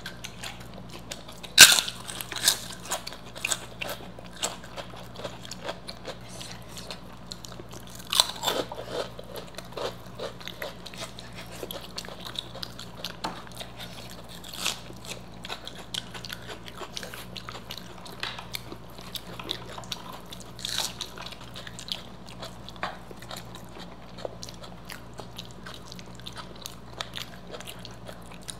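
Close-miked eating: crisp fried food being bitten and crunched between steady chewing, with a few sharp, loud crunches, the loudest about one and a half seconds in and others about eight and twenty-one seconds in.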